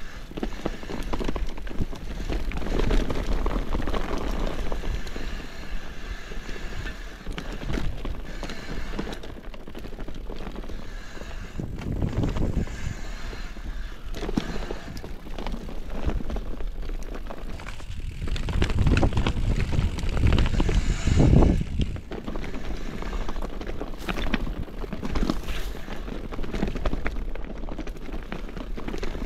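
Mountain bike rolling down a rough, rutted dirt track: continuous tyre-on-ground noise with scattered knocks and rattles from the bike. Wind buffets the microphone in surges, strongest about two thirds of the way through.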